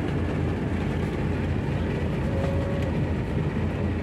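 Steady low rumble of a bus's engine and running gear, heard from inside the cabin as it drives slowly.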